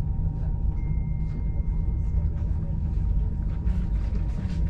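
Passenger train coach rolling at low speed, heard from inside the carriage: a steady low rumble with faint steady hum tones over it.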